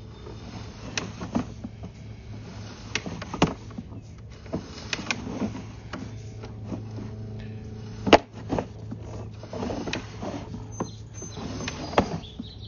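Sewer inspection camera and its push cable being pulled back through a clay sewer pipe: irregular knocks and clicks, the sharpest about eight seconds in, over a steady low hum.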